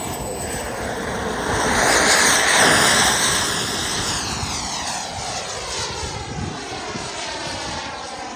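Turbine of a large RC Albatros L-39 model jet (JetCat 180) making a flyby: a rushing jet noise that swells to its loudest about two to three seconds in, then fades slowly with a sweeping, phasing sound as the jet moves away.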